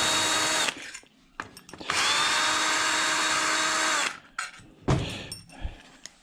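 Cordless drill-driver running in two bursts of about two seconds each, backing the T25 Torx screws out of a washing-machine motor's housing; the pitch sags as each burst winds down. Then a few light clicks and low knocks of metal parts being handled.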